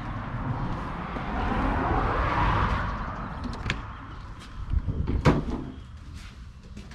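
A car passing by, rising and fading, then a few clicks and a loud clunk of a door being opened about five seconds in.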